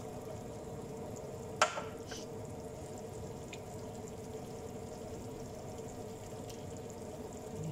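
Chicken afritada simmering in tomato sauce in a frying pan as freshly added bell pepper strips are stirred in with a spatula, with a steady low sizzle. One sharp knock about one and a half seconds in, and a couple of faint ticks after.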